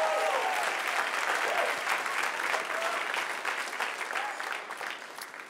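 Large audience applauding, the clapping dying away toward the end.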